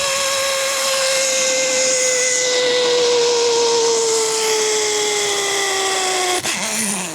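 Zip line trolley pulleys running along the steel cable: a steady whine over rushing air, its pitch falling slowly as the rider slows, then stopping abruptly about six and a half seconds in at the end of the run.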